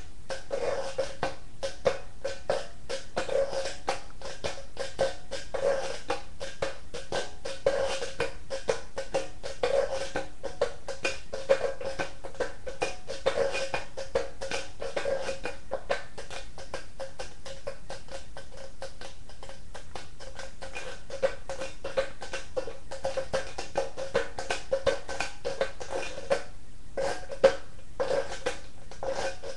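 Rubboard (washboard) played by hand in a beginner's tapping and scraping rhythm: a steady run of quick metallic taps and rasps, with a louder stroke about every two seconds and a short break near the end.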